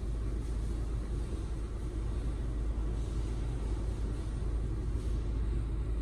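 Car climate-control blower running at full fan speed on the hot setting, air rushing steadily from the rear-seat vents as a low rumble.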